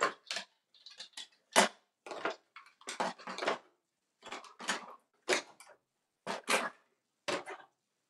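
Plastic bird toys clattering and clacking as they are lifted out of a wooden drawer and dropped into a tote. It comes as a string of separate short rattles with pauses between them, the loudest about one and a half seconds in.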